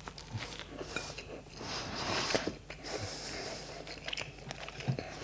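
Close-miked chewing of a bite of cold Costco cheese pizza, soft mouth noises and small clicks. Near the end a light knock as a plate is set down on the table.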